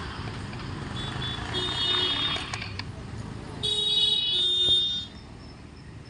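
Steady background street traffic with vehicle horns honking twice: a shorter honk about a second and a half in, and a louder, longer one from about three and a half to five seconds.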